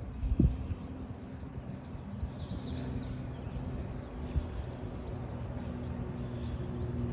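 Outdoor trail ambience picked up on a phone microphone while walking: a steady low rumble of wind and handling noise, with one thump about half a second in. A faint bird chirp comes about three seconds in.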